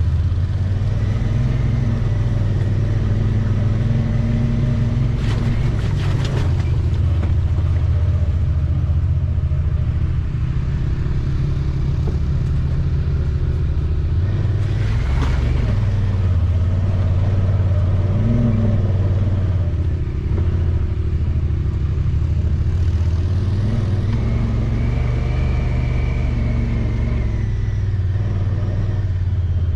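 Off-road vehicle's engine running at low trail speed, a steady low drone that rises and falls gently with the throttle. There are a few brief clatters about five to six seconds in and again around fifteen seconds in.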